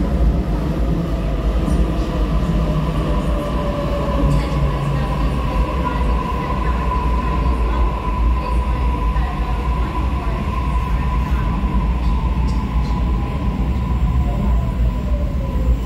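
Sydney Trains double-deck electric train moving through an underground station: a steady low rumble with a whining tone from the traction motors. The whine falls slowly in pitch, more clearly near the end, as the train slows.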